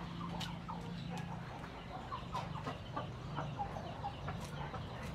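Poultry clucking: short calls repeated irregularly, starting about a second in and coming more often toward the end.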